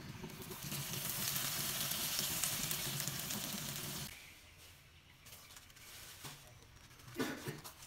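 Sugar and palm sugar caramel bubbling and sizzling hard in a wok, as a loud steady hiss that cuts off suddenly about four seconds in. The rest is much quieter, with a few soft knocks near the end.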